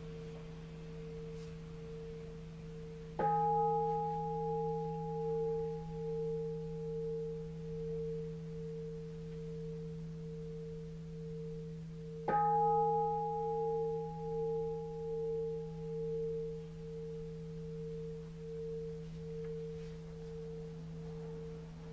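A Buddhist bowl bell struck twice, about nine seconds apart, each strike ringing on in a long tone with a slow wavering pulse as it fades. A low steady hum lies underneath.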